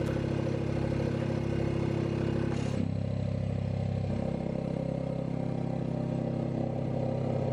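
Vacuum pump running steadily, pulling a vacuum on a homemade vacuum casting chamber capped with a plexiglass tube. A short hiss comes about three seconds in, after which the hum drops slightly in pitch.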